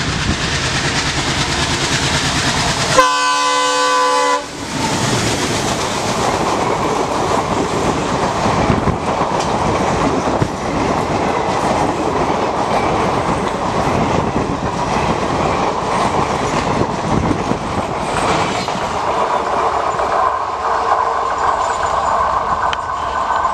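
WDG 3A diesel locomotive running as it approaches, then one horn blast of about a second and a half, followed by the passenger coaches clattering past over the rail joints. A thin steady whine joins the clatter near the end as the last coach draws away.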